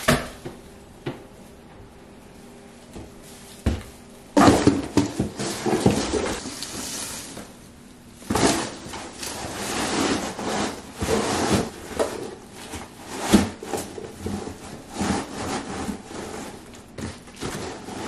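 Rustling and scraping of flocked artificial Christmas tree branches being handled and pushed into a cardboard box. A few separate knocks come first, then from about four seconds in the rustling comes in irregular bursts.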